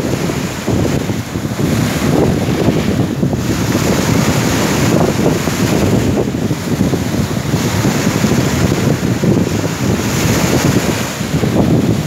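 Wind buffeting the microphone in a gusty, rumbling roar over the wash of sea waves.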